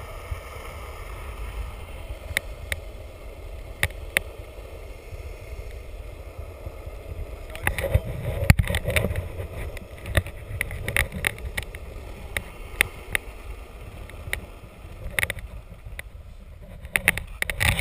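Skateboard wheels rolling over rough asphalt: a steady low rumble, broken again and again by sharp clicks and knocks, with a louder stretch about halfway through.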